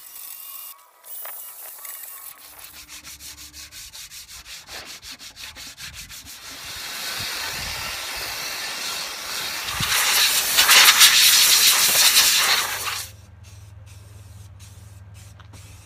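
Fast rubbing strokes, about five a second, from wet sanding a pressed-steel tractor seat. Then a water spray hisses against the metal, swells and cuts off suddenly a little before the end, leaving a low steady hum.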